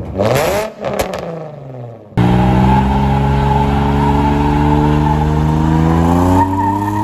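Car engine revving: a short rev that rises and falls away, then an abrupt cut to a long, steady high-rev run whose pitch climbs slowly.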